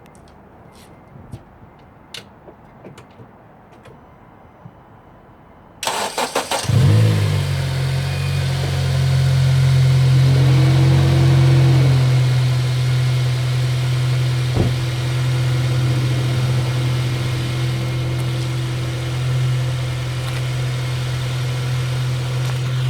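A few faint clicks and knocks, then about six seconds in the Honda Civic Si's K-series four-cylinder engine cranks briefly, catches and settles into a steady idle with a light clicking from its injectors. The scratchy, marble-like grinding that a failing PCV valve caused is not heard now that the valve has been replaced.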